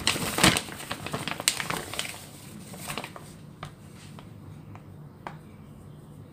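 A flour container is handled: rustling with a couple of sharp knocks, then a few separate light taps as flour is dusted onto the dough.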